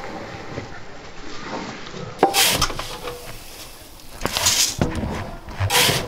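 Dry feed grain poured from a scoop into a galvanized metal tub, heard as three short rattling hisses. A sharp knock comes just before the first pour, about two seconds in.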